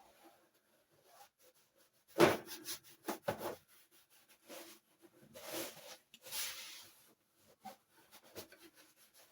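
A soapy cloth wiping and rubbing the toy hockey game in scattered strokes, with a knock a couple of seconds in.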